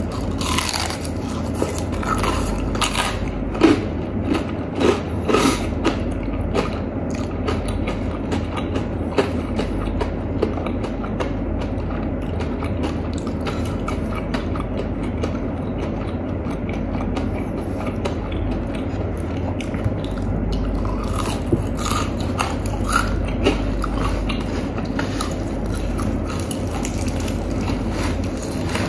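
Biting and chewing crispy fried chicken, with many short crunchy crackles from the coating over a steady low background hum.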